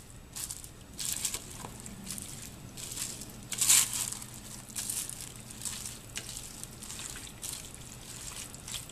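Thick, chunky chili being stirred with a spatula in a slow cooker lined with a plastic liner: irregular wet, squelching strokes with crinkling of the liner, over a low steady hum.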